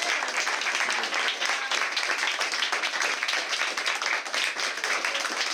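A crowd applauding: many hands clapping steadily at once.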